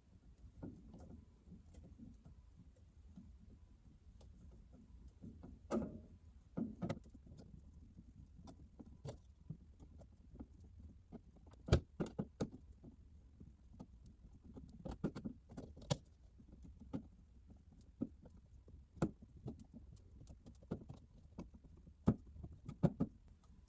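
A screw being driven by hand into a smoke alarm mounting plate: faint, irregular clicks, taps and scrapes of the screwdriver and screw, with one sharper click about halfway through.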